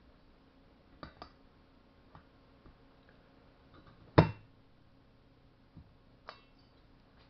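Scattered sharp clicks and clinks of small metal chainsaw parts and tools being handled during reassembly. About four seconds in comes one much louder knock with a brief ring.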